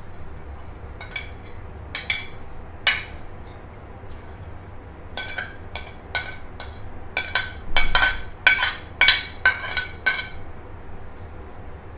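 A spoon clinking against a plate and the rim of a glass bowl as chopped onion, green chilies and coriander are scraped off the plate into the bowl. The clinks are sharp and ringing: a few scattered ones at first, then a quicker run of about a dozen between about five and ten seconds in.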